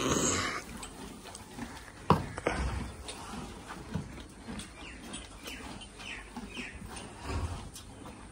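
A horse feeding at a concrete manger, with one sharp knock about two seconds in, the loudest sound. Small birds chirp with short falling calls near the end.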